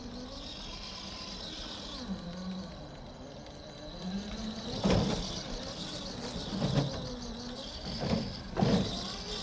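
Axial SCX10 III Gladiator RC crawler's electric motor and gears whining, the pitch wavering up and down, with four louder knocks in the second half.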